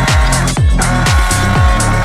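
Electronic dance music with a steady beat: a deep kick drum that drops in pitch about twice a second, with hi-hats and held synth chords.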